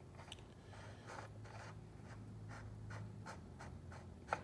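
Faint scraping and rubbing of a freshly cut, grease-coated pinion gear being slid and twisted onto its lathe shaft, with one sharper click near the end.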